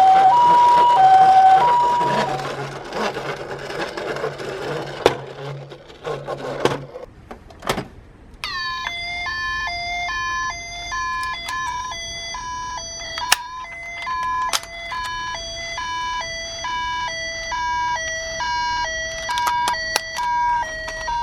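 Two-tone hi-lo toy ambulance siren, alternating evenly between a high and a lower note. It stops about two seconds in, giving way to a hiss and a few sharp clicks. A second hi-lo siren with a harsher tone starts about eight and a half seconds in and keeps alternating.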